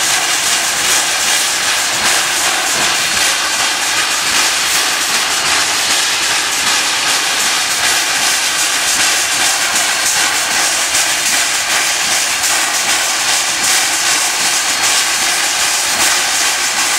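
Steam escaping from the boiler of Union Pacific 844, a 4-8-4 Northern steam locomotive standing still. It makes a loud, steady hiss that cuts off abruptly at the end.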